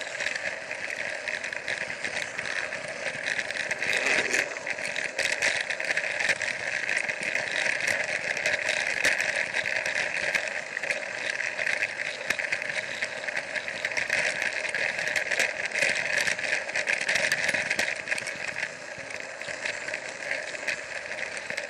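Battery-powered Plarail toy train running on plastic Plarail track: a steady motor and gearbox whine with a fast rattle of clicks from the wheels on the rails.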